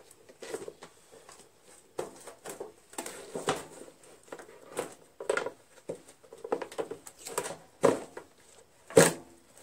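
Irregular clicks, knocks and rustling from hands handling wiring and a plastic battery box on a lawn tractor, with one sharper knock near the end.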